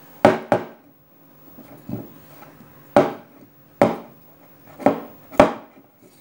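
Buchi dough being kneaded by hand in a glass mixing bowl, with seven sharp knocks at uneven intervals as the bowl and dough are worked against the counter; the first two come close together.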